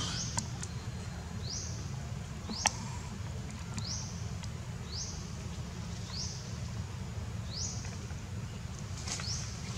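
Chirping from the surrounding forest: a short high call rising in pitch, repeated roughly once a second, over a steady low rumble, with a sharp click a little under three seconds in.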